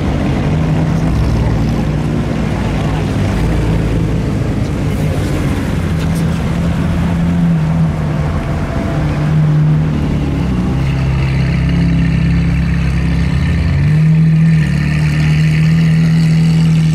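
Sports car engines at low revs rolling slowly past in a line, a steady low exhaust drone. A red Ferrari F430-series V8 passes close, and it is loudest in the last few seconds.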